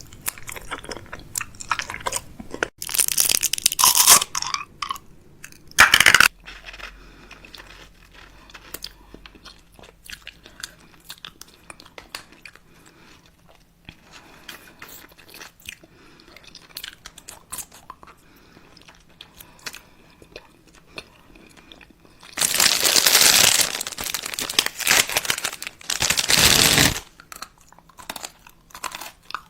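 Close-up mouth sounds of someone biting and chewing crunchy food: a run of small sharp crunches, with louder, longer crunching bursts about three seconds in, at six seconds, and twice near the end.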